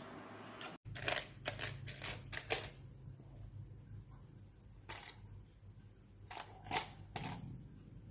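A dachshund nosing a plastic cup on a tile floor: a quick run of light clicks and knocks, then a few single taps, over a low steady hum.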